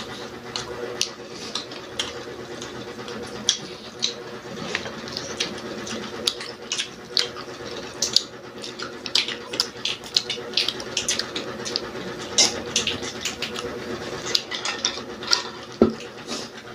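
Close-up eating: a person chewing crispy fried food, with many short, irregular crunches and crackles throughout.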